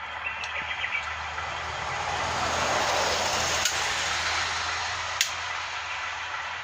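Waterfall sound effect from a vintage motion waterfall picture: a steady rushing hiss of falling water that swells in the middle, over a low steady hum, with two sharp clicks near the middle and later on.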